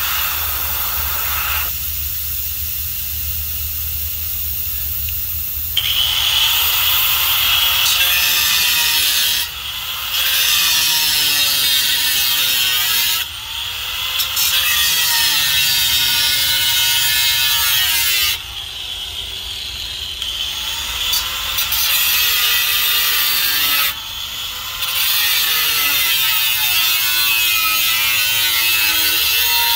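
Electric angle grinder with an abrasive disc grinding the side of a stainless steel beer keg. Quieter for the first few seconds, then long loud passes broken by brief dips every four to five seconds, the motor's pitch wavering as the disc bites.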